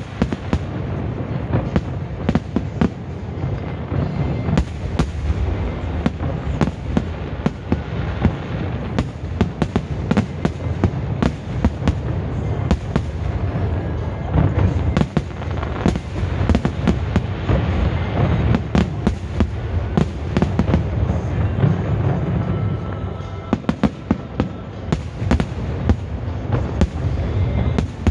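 Aerial fireworks going off in a dense, continuous barrage of bangs and crackles over a low rumble, with music playing underneath; the barrage eases briefly about three quarters of the way through.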